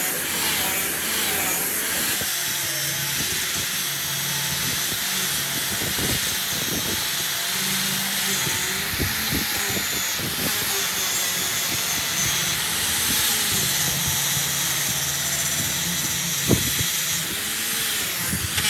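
A power tool running steadily on wood, mostly a high hiss over a low hum, with one sharp click near the end.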